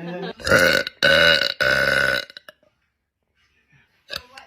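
Loud, deep burps in quick succession over the first two seconds.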